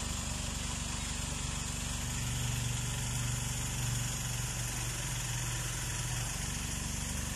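A small engine idling steadily, a low hum that swells a little in the middle, over an even background hiss.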